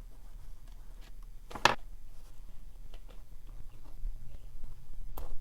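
Small ticks and handling noises from cutting the outer rubber sheath of a spark plug lead by hand, with one sharp snip about a second and a half in and another near the end.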